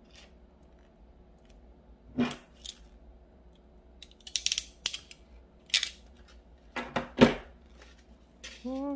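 Crimping pliers clicking and snapping shut as they press small metal sleeves onto heavy monofilament leader line, with lighter handling clicks in between. The clicks come irregularly, about ten in all, the loudest about seven seconds in.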